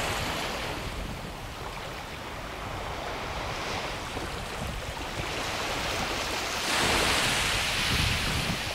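Small waves washing up onto a sandy beach and draining back, with one wash at the start and a louder one near the end. Wind rumbles on the microphone underneath.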